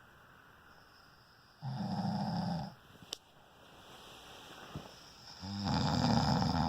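A sleeping man snoring: two loud snores, each about a second long and roughly four seconds apart.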